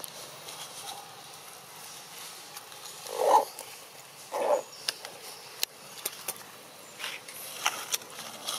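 Long-tailed macaque giving two short, low calls, about three seconds in and again a second later, over scattered light clicks and rustles.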